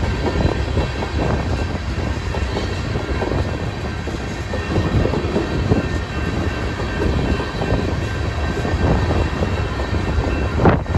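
Freight train of open-top hopper cars rolling steadily past, wheels clattering over the rails, with strong wind rumbling on the microphone.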